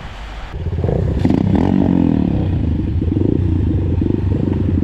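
Motorcycle engine running loudly after about half a second, with a brief rev-up and fall-back of pitch between one and two seconds in, then holding a steady, rapid firing beat.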